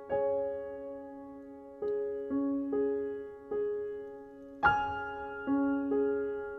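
Slow, gentle background piano music: single notes and small chords struck a few at a time, each left to ring and fade.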